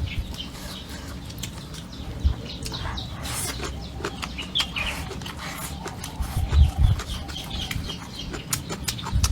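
Chickens clucking, over close, irregular clicks and smacks of someone eating.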